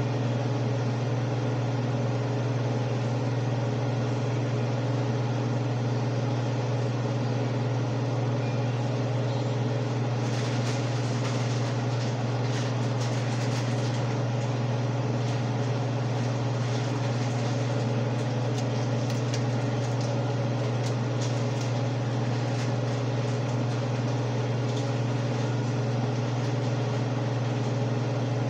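Kitchen range hood fan running with a steady low hum, and light scattered ticks from about ten seconds in.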